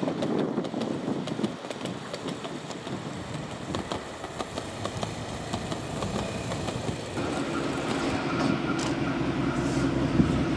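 Class 52 'Western' diesel-hydraulic locomotive with twin Maybach engines approaching. A steady engine drone comes in about seven seconds in and grows louder.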